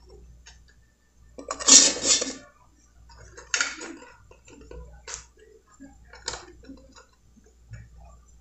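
Metal kitchen tongs knocking and clicking against a ceramic baking dish as breaded chicken fillets are laid in it. A louder, rough clatter lasts about a second near two seconds in, then single sharp clicks come three times, about a second and a half apart.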